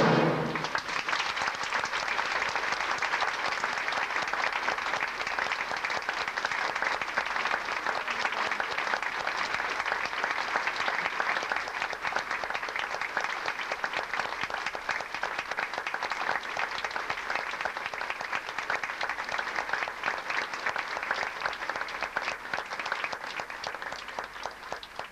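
The orchestra's last chord breaks off at the very start, and a theatre audience applauds in a dense, steady clatter of clapping that thins out and fades near the end.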